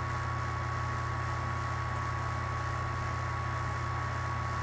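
Steady hum of a small electric motor with an even hiss of moving air.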